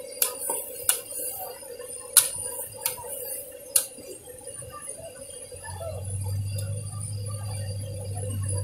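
Metal spatula clanking against a steel wok while noodles are stir-fried, five sharp clanks in the first four seconds over a steady hiss of frying. A low steady hum comes in about halfway.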